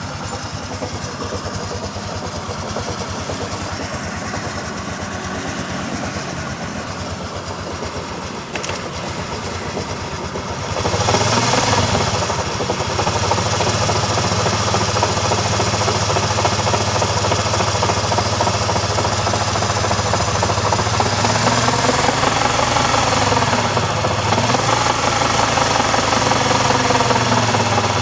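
Suzuki Skydrive scooter's single-cylinder engine running with a rough, rhythmic 'krok krok' knock from inside the crankcase, the sign of a damaged crankshaft main bearing ('laher pipi'). About eleven seconds in it gets louder as the throttle is opened, and later the engine speed rises and falls again.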